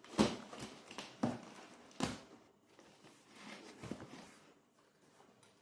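Rice cooker's cardboard box and packaging being handled and opened: several sharp knocks and taps with soft rustling between them.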